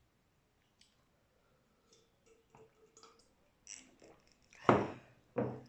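Mouth sounds of a person eating: faint lip smacks and small clicks, then two short, loud throat or breath sounds close together near the end.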